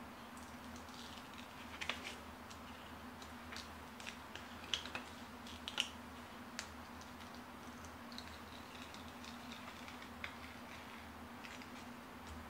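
Faint small clicks, ticks and scratches of an X-Acto knife picking waste vinyl off a decal's backing sheet, irregular and sharpest about 2 and 6 seconds in, over a steady low hum.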